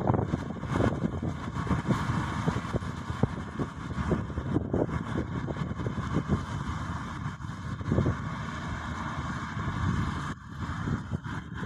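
Combine harvester running, a continuous uneven mechanical rumble from its engine and machinery.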